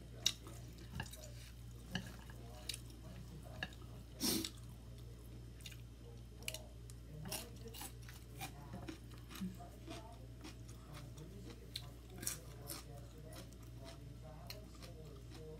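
Close-up mouth sounds of eating rice vermicelli, fried tofu and raw vegetables: chewing with many small wet clicks and smacks, one louder a little past four seconds in, over a steady low hum.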